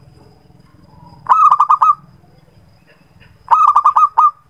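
Zebra dove (perkutut) cooing: two short phrases about two seconds apart, each a quick run of five or six clipped notes.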